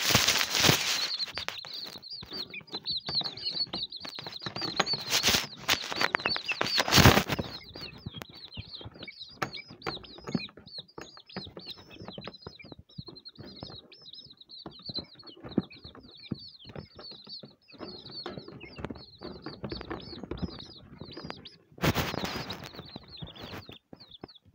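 A group of chicks peeping constantly, a dense stream of short high peeps. It is broken by a few loud rustling bursts as the chicks flap and scuffle, the loudest about seven seconds in.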